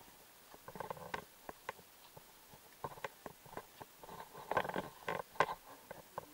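Footsteps on a forest path and spruce branches rustling as they brush past, with irregular crackles and snaps, busiest about a second in and again from about four to five and a half seconds.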